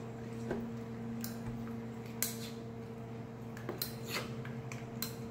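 Sparse light clicks and taps of kitchen utensils handled at a counter, over a steady low electrical hum.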